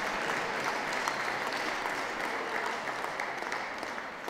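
Ringside audience applauding steadily, a dense patter of many hands clapping that eases off slightly near the end.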